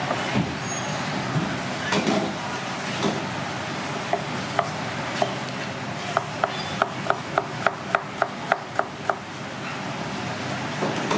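Cleaver chopping garlic on a thick wooden chopping block: a run of sharp knocks, about four a second, in the second half, over steady background noise.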